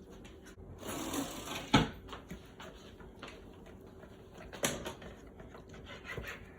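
Knife cutting raw chicken on a cutting board: scraping and handling noise with a few sharp knocks of the blade on the board. The loudest knock comes a little under two seconds in and another near the middle.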